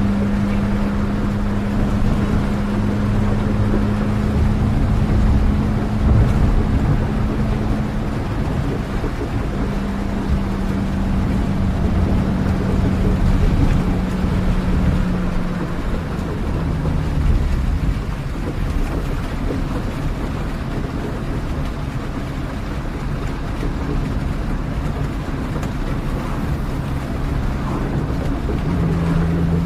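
Steady low vehicle engine drone with a hum near 200 Hz over an even wash of noise. The hum fades out a little past halfway and comes back near the end.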